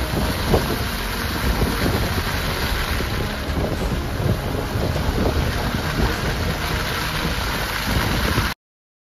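Wind buffeting the microphone of a camera mounted low on the side of a moving Suzuki Jimny, mixed with tyre and road noise from driving on a snow-covered road. It cuts off suddenly near the end.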